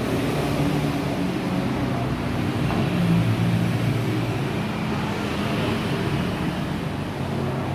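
A vehicle engine running steadily, its low hum wavering slightly in pitch.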